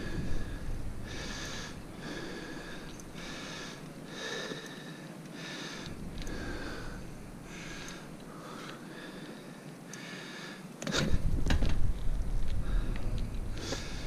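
A cyclist's heavy, rhythmic breathing while pedalling, about one breath a second. About eleven seconds in, a louder low rumble sets in with a few knocks.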